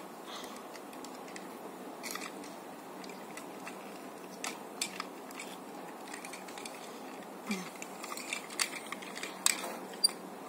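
Plastic parts of Tobot transforming toy robots clicking and knocking as they are handled and snapped together: a few scattered clicks at first, then a busier run of clicks in the second half, over a faint steady hum.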